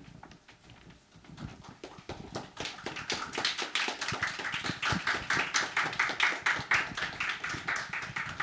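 Audience applauding: a few scattered claps that swell into full applause about three seconds in.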